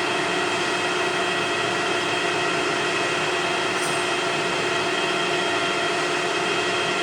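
Metal lathe running at medium spindle speed, set to about 550 RPM, with a steady whine from its gearbox and spindle made of several even tones.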